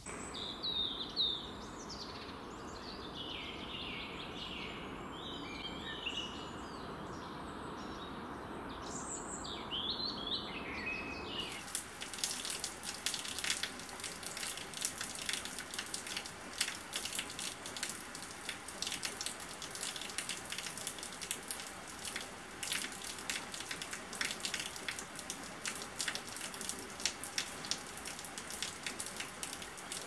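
Songbirds chirping over a steady wind noise; about eleven seconds in, the sound cuts abruptly to rain falling on grass, dense drop sounds that go on for the rest.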